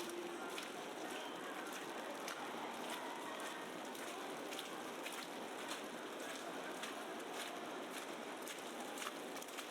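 Heavy wet snowfall on a city street: a steady hiss with many light, irregular ticks of flakes and drips landing.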